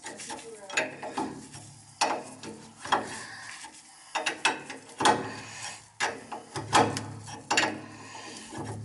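A wrench clicking and working against a brass oil-line fitting at the oil tank's valve as the fitting is tightened: a run of short, sharp metal clicks about every half second to a second.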